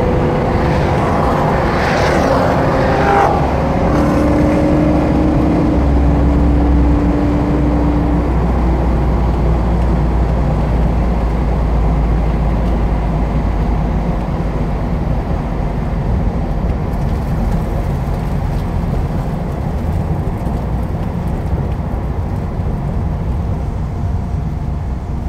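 Porsche 968's 3.0-litre inline-four engine running at low revs, heard from inside the cabin with road and wind noise, as the car slows from about 40 mph to a crawl.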